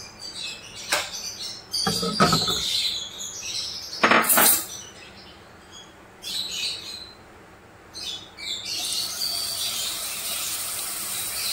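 Three knocks and clatter of utensils against a frying pan, with birds chirping in the background. About nine seconds in, crushed garlic hits the hot oil and starts a steady sizzle.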